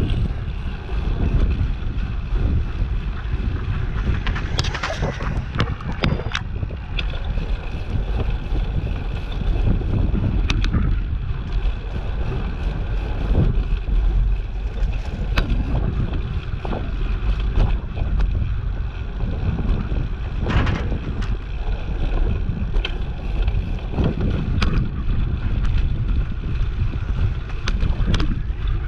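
Wind buffeting the microphone of a camera on a moving bicycle: a steady, loud low rumble, with scattered short clicks and knocks throughout.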